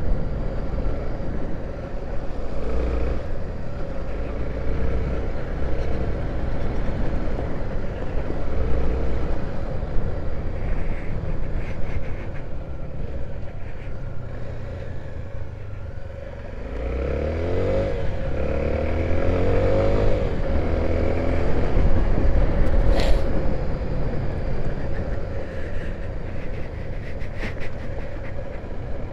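A 250 cc single-cylinder motorcycle engine running on the move, with road and wind noise. About sixteen seconds in it drops, then revs up several times in a row as it accelerates through the gears, and a sharp knock follows soon after.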